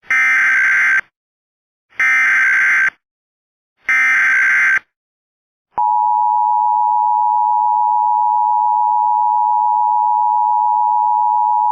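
Emergency Alert System SAME header: three bursts of digital data noise, each about a second long and about a second apart. About six seconds in, the EAS attention signal starts: a steady, loud two-tone tone (853 and 960 Hz) that holds on.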